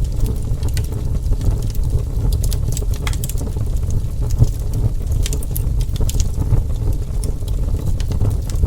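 Wood fire burning with a steady low rumble of flames and scattered sharp crackles and pops of burning wood, a little denser in the middle.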